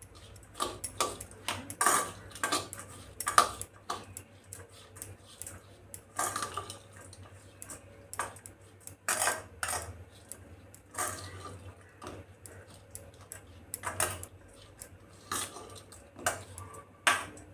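Steel spoon stirring a grated cauliflower and spice filling in a stainless steel bowl, clinking and scraping against the metal in irregular strokes.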